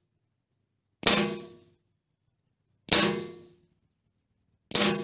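Three .22 LR rimfire shots from a Toz 78 bolt-action rifle firing Eley Sport cartridges, about two seconds apart. Each is a sharp crack with a short ringing tail.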